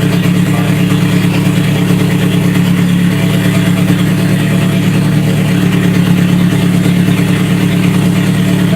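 Toyota 3S-GE inline-four engine, freshly rebuilt, idling steadily on its first run after the rebuild.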